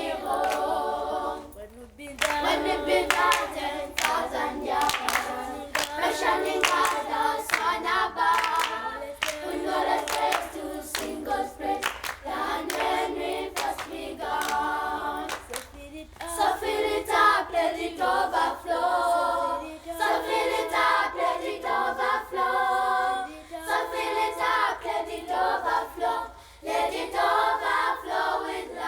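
Children's choir singing in harmony, with hand clapping, most of it in the first third, and short breaks between phrases.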